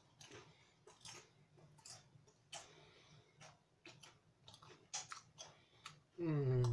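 Someone chewing a potato chip with the mouth closed: soft, irregular crunches. Near the end comes a short hummed "mm" that falls in pitch.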